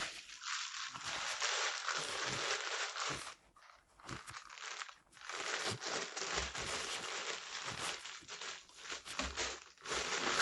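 Crinkly packaging being handled and crumpled during an unboxing, a dense crackling in two long stretches with a short break about three seconds in.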